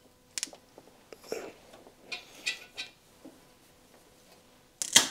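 Small clicks and scratchy rustles of a braided boost line and its fitting being handled and cut, with a louder sharp click near the end.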